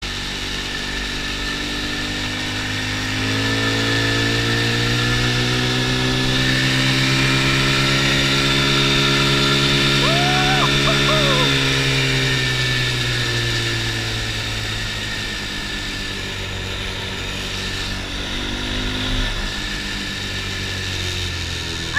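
ATV engine running steadily, growing louder about three seconds in and easing off again after about twelve seconds.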